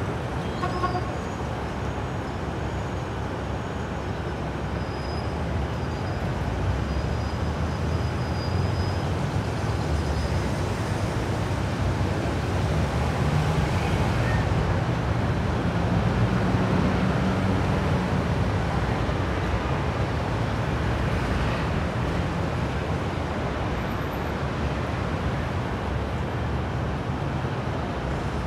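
Steady outdoor rumble and noise from boat engines and wind, with a low engine drone swelling about halfway through.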